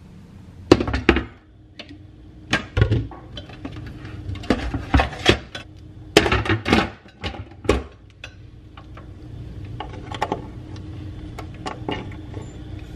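Irregular knocks and clinks of a slow cooker's stoneware insert being handled, lifted and set down into its metal base.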